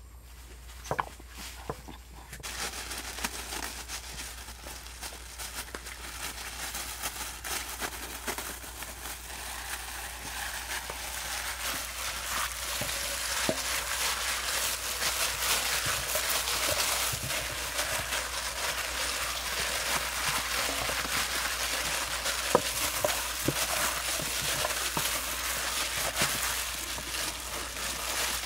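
Thin plastic food-prep gloves crinkling and rustling as hands rub seasoning into raw whole chickens in a stainless steel bowl: a crackly hiss that starts about two seconds in and slowly grows louder, with scattered small clicks.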